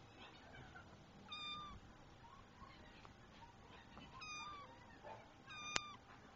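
A kitten meowing three times, short high-pitched meows of about half a second each, the pitch dipping slightly at the end of each. A sharp click comes during the third meow.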